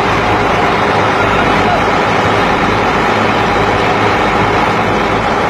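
Truck engine running steadily, with people's voices mixed in.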